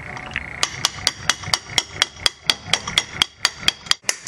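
Adjustable wrench hammering on the end of a screwdriver set against the CV axle shaft in the wheel hub, a rapid, even run of sharp metallic taps, about four a second, with a bright ring; it starts about half a second in. The taps are driving the CV axle back through the hub to free it.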